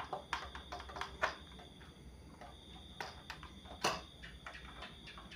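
Irregular light clicks and knocks of wires, connectors and the circuit board of a CRT television being handled, with one sharper knock a little before four seconds in. A steady high trill of crickets sounds behind it.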